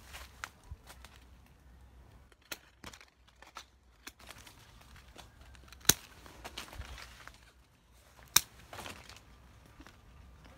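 Hand pruning shears snipping off pomelo branch tips: a series of sharp clicks as the blades close, the two loudest about six and eight seconds in, with the leaves rustling as the branches are handled.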